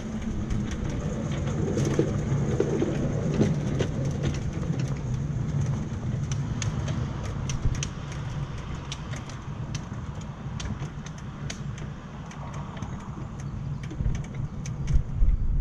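Battery-electric 7¼ inch gauge locomotive running along the track: a steady low hum of motor and wheels, with scattered sharp clicks.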